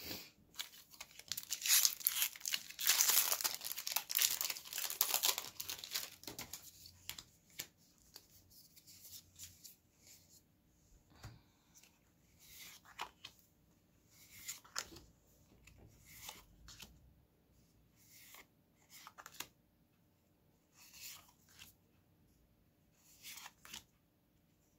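A Magic: The Gathering draft booster pack's foil wrapper being torn open and crinkled for about the first six seconds, then cards being handled, with a short slide or flick every second or so as they are moved one behind another.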